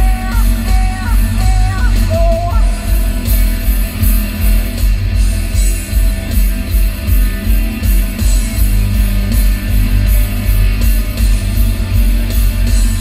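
Rock music with electric guitar and a steady beat, played loud through a car's aftermarket Ground Zero audio system, its subwoofers giving heavy deep bass.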